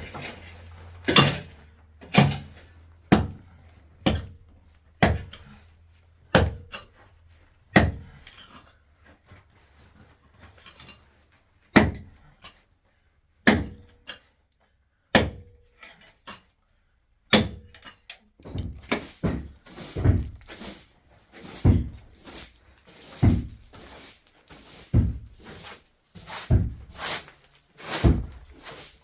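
Repeated sharp knocks, about one a second at first, sparser in the middle, then coming faster and closer together from about two-thirds of the way in.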